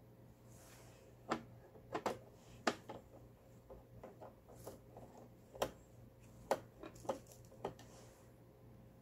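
Light clicks and taps of a screwdriver and hands on the plastic housing of a Lion home sewing machine as its cover is screwed back on: about nine sharp ticks at irregular intervals.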